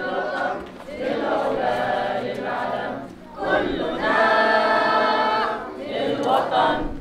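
Many voices singing together in long held phrases, about four of them with short breaks between.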